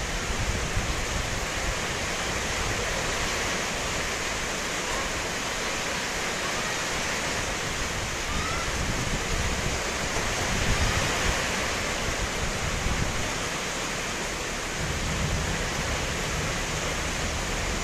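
Heavy tropical-depression rain pouring down, a dense even hiss, with low gusts of wind rumbling now and then.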